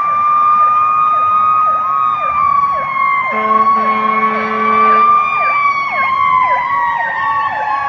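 Fire truck sirens: a Federal Q2B mechanical siren wailing slowly, its pitch falling near the end, layered with an electronic siren sweeping rapidly over and over. A steady horn blast sounds for about two seconds a third of the way in.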